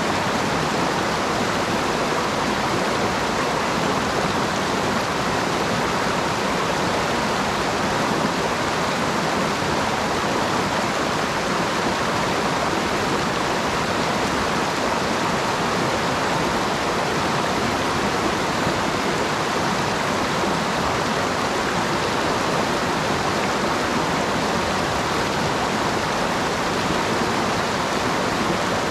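Mountain stream rushing, a steady even rush of flowing water.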